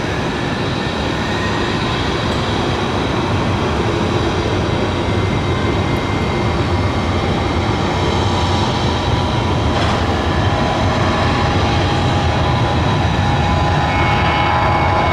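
Jet airliner engines running, a steady roar that slowly grows louder, with a thin high whine on top.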